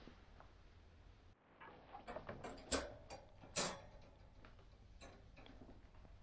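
Faint metal clicks and rattles from a wire dog crate panel being handled and opened, with two louder clinks about a second apart near the middle.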